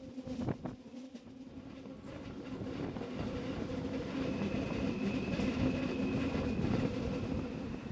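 Narrow-gauge electric train running, heard from a carriage window: a steady motor hum with clicks of the wheels over the rails early on. About halfway through, a thin high wheel squeal joins as the train rounds a curve, and the running grows louder.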